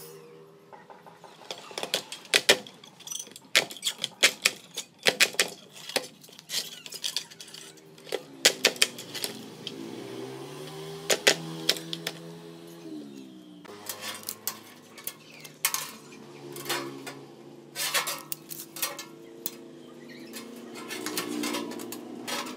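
Steel chain-link mesh clinking and clacking against a steel bending jig as it is worked and bent, with sharp metal knocks coming in irregular bunches. A fainter low hum that shifts in pitch runs underneath.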